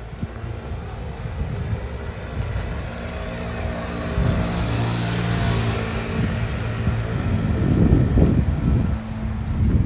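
A motor vehicle drives past: its engine hum and tyre hiss swell from about four seconds in and fade near the end. Wind buffets the microphone in the last couple of seconds.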